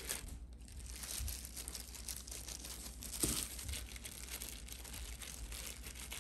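Thin disposable plastic glove crinkling and rustling as a gloved hand presses and spreads raw minced beef over noodles in a bowl, a steady crackle that peaks a little over three seconds in.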